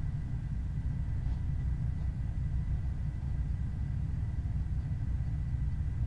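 Steady low rumble of a car driving at a constant pace: engine, tyre and wind noise with no change in pitch, and a faint thin steady whine above it.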